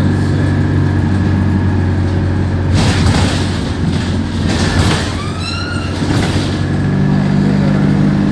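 Diesel engine of an Alexander Dennis Enviro200 bus running with a steady drone. About three seconds in, a few seconds of rushing, hissing noise cover it, with a short rising squeal just past the middle.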